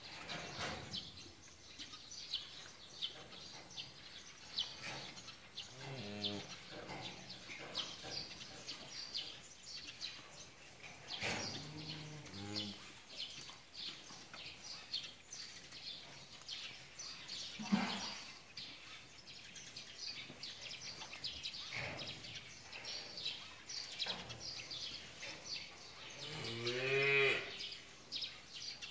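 Hanwoo cattle mooing several times, the longest and loudest call near the end.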